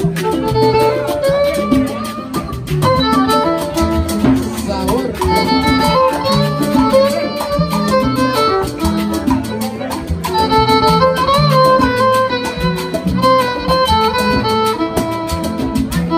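Live salsa band playing an instrumental passage: a violin carries the melody over steady percussion and a repeating bass line.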